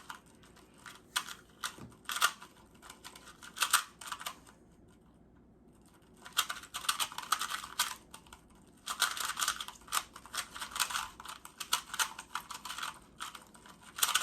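Plastic 2x2 speed cube being turned fast in a timed solve: bursts of rapid clicking and clacking as the layers snap round, with a pause of about a second and a half before the middle.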